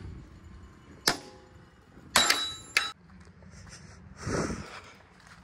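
A sharp metallic click, then a louder clank with a brief ringing tone that ends in another click, followed near the end by a short hiss, over a low steady rumble.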